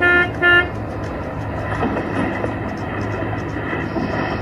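Vehicle horn giving two short toots in the first second, then a steady low rumble of vehicles and street noise.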